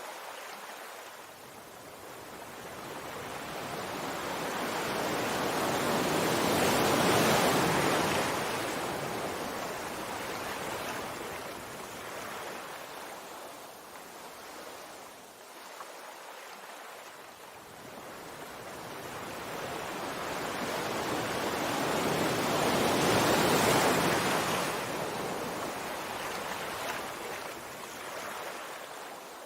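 Sea waves washing in on the shore: two slow swells of surf, one peaking about a quarter of the way in and one near the end, each rising and then ebbing away.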